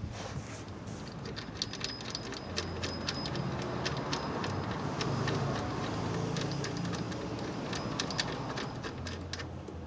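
Metal hand tools and engine parts clinking and rattling against each other as a new accessory-belt tensioner bearing is fitted: many irregular sharp clicks, some with a brief metallic ring.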